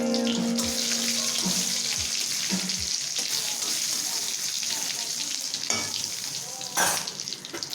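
Hot oil sizzling and crackling in a pan as food fries, slowly dying down, with one louder knock about seven seconds in.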